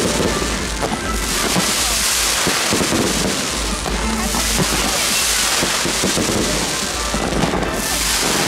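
A fireworks display going off in a dense, unbroken crackle of firecrackers and ground fireworks, with aerial fireworks launching into the sky. The hissing crackle swells and eases in waves.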